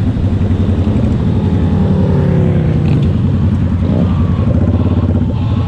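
Motorcycle engine and exhaust running steadily at cruising speed with a fast low pulsing beat, heard from on board the moving bike.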